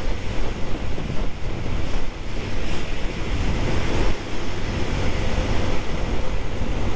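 Wind rushing over the camera microphone while riding a Yamaha Fazer 150 motorcycle at highway speed, with the bike's engine running steadily underneath.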